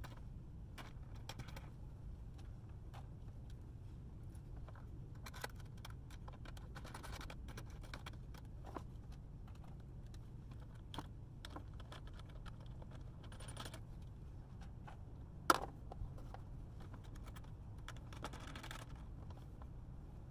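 Small metal clicks and clinks of washers, nuts and cable lugs being handled and fitted by hand onto the studs of a battery busbar, irregular throughout, with one sharper click about fifteen seconds in. A low steady hum sits underneath.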